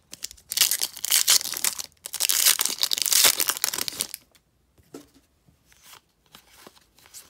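Foil wrapper of a Topps trading-card pack crinkling and tearing open in two loud spells over about four seconds. After that come only faint clicks as the cards inside are handled.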